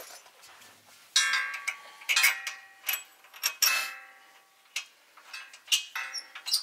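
Sharp metal clanks, each with a short ringing tone, coming roughly once a second as a floor jack works a semi-truck fuel tank up into its mount.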